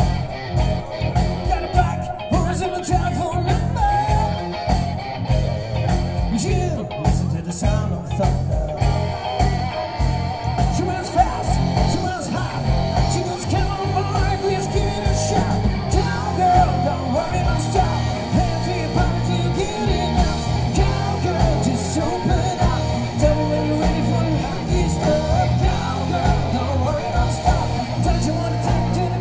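Live heavy rock band playing a song: electric guitars over bass and drums with a steady driving beat.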